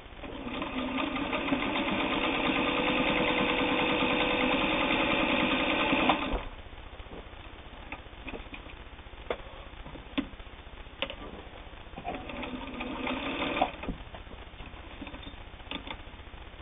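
Singer 301 straight-stitch sewing machine running at a steady speed, stitching through two layers of heavy denim for about six seconds, then stopping. A few clicks and knocks follow, then a second, shorter run of about a second near the end.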